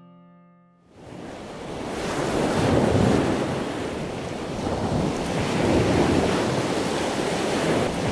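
A last piano-like chord dies away, then from about a second in a muddy river in flood rushes and churns, swelling over the next second and staying loud and steady.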